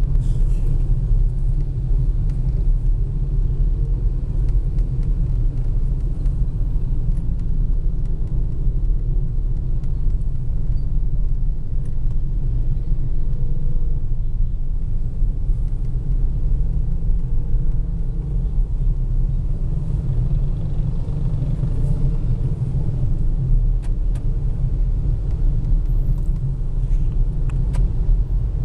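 Steady low traffic rumble heard from inside a car's cabin, the car moving slowly in a dense crowd of motorcycles.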